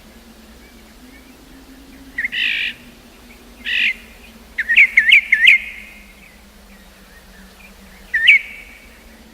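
A bird calling: two short, harsh calls, then a quick run of about five chirps around five seconds in, and one last chirp near the end.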